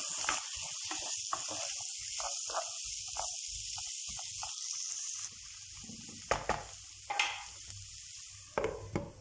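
Sliced potatoes, onion and garlic sizzling in oil in a frying pan while a wooden spoon stirs them, scraping and clacking against the pan. About five seconds in the sizzle drops suddenly, and a few sharp knocks follow.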